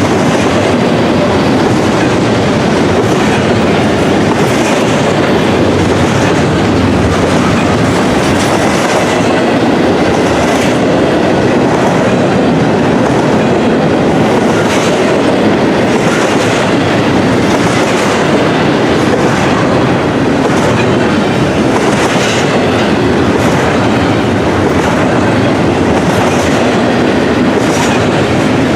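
Intermodal container freight train rolling past at speed: a steady, loud rumble of steel wheels on rail, with a click-clack from the wheels crossing rail joints roughly once a second.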